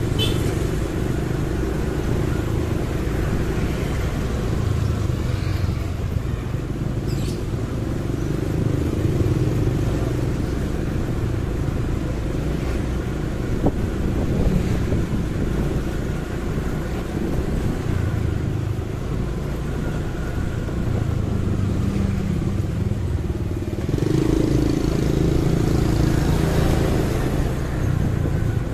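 Motorcycle engine running on the move through city traffic, its note shifting up and down with speed and briefly louder near the end.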